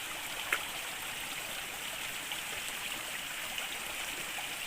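Small river flowing, a steady rush of running water, with a single short click about half a second in.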